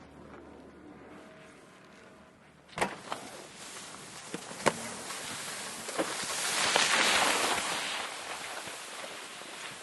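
Unloading from a fixed-grip quad ski chairlift: a quiet ride, then a sharp clunk about three seconds in and a few more clicks and knocks, followed by a swelling hiss of skis sliding on snow that peaks midway and slowly fades.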